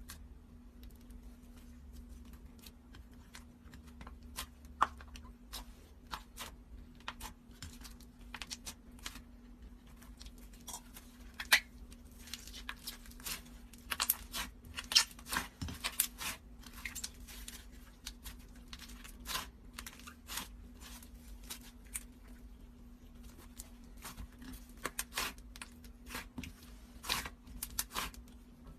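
Slime being worked by hand, giving irregular sticky pops, clicks and crackles, densest in the middle and again near the end, over a faint steady hum.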